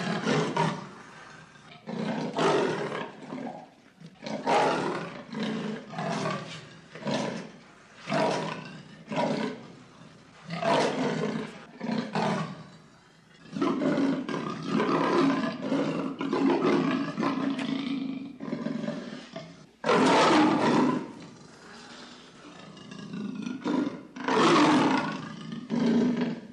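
Leopard roaring: a series of rough calls about a second apart, then a few longer, drawn-out calls in the second half.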